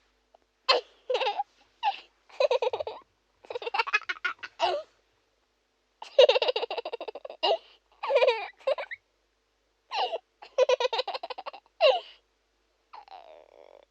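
A baby laughing, a cartoon character's laugh sound effect. It comes in high giggling bursts, about seven laughs with short pauses between them and a fainter one near the end.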